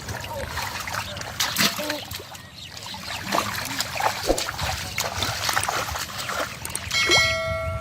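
Water splashing and sloshing in irregular bursts as hands grope through shallow river water for catfish. Near the end comes a brief steady high-pitched tone with overtones.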